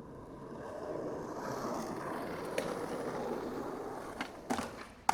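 Skateboard wheels rolling on skate-park concrete, the rolling noise growing louder as the board passes and then fading, followed by a few sharp clacks of the board near the end, the last the loudest.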